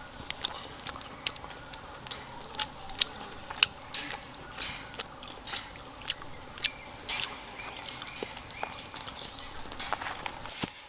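Steady rain with irregular sharp taps and clicks a few times a second throughout.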